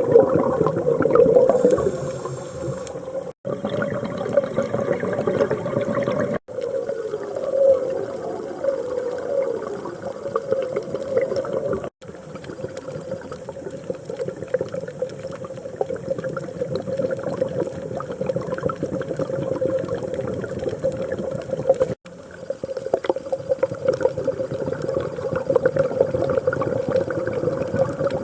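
Scuba diver breathing underwater through a regulator, with inhalations and gurgling exhaled bubbles, over several short clips that break off abruptly at each cut.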